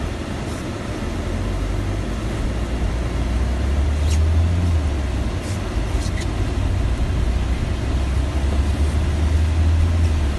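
Cab noise inside a van driving through heavy rain: a deep engine and road rumble that swells twice, over an even hiss of rain on the windscreen and body, with a few faint ticks.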